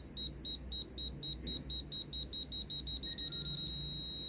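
Small 3–12 V buzzer driven by an Arduino Uno, muffled under a thumb, beeping a high tone as a countdown timer. The beeps speed up from about four a second to about seven, then merge into one continuous tone near the end: the timer reaching "detonation".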